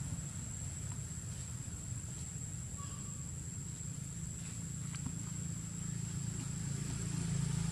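Outdoor forest ambience: a steady high-pitched insect drone over a constant low rumble, with a few faint light ticks.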